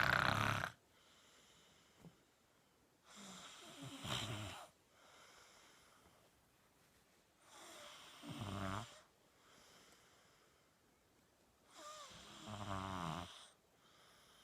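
A person snoring: a rattling snore about every four seconds, with fainter breaths between. One snore is already ending at the start and three more follow.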